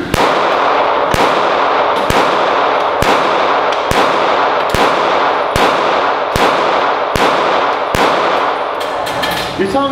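Pistol fired about ten times at a steady pace, roughly one shot every 0.8 seconds, each shot ringing on in the echo of an indoor range.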